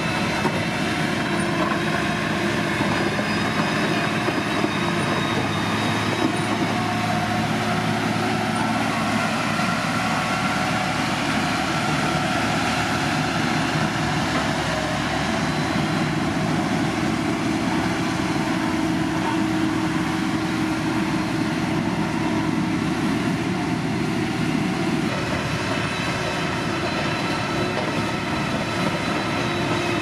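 Motor grader's diesel engine running steadily under load, with several steady whining tones over a dense rumble.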